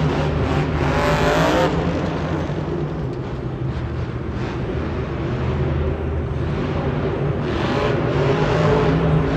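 Black Pearl monster truck's supercharged V8 revving hard, with a rising rev about a second in. The engine eases off for a few seconds in the middle, then revs up again near the end.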